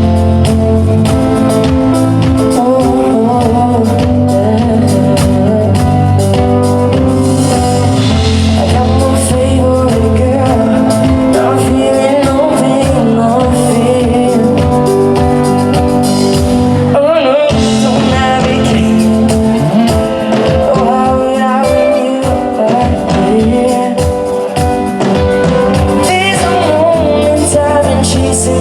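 Live band music with a singer, amplified through a stage PA during a sound check.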